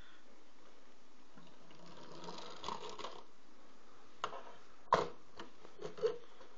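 Handling noise: a soft rustle, then three sharp clicks or knocks a second or so apart, the middle one loudest.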